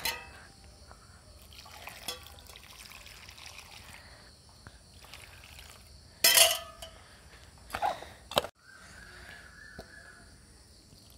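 Water poured and trickling from a stainless steel pot onto potting soil in a plastic basin, wetting it into mud. A loud sudden knock comes about six seconds in and two sharper knocks follow about two seconds later.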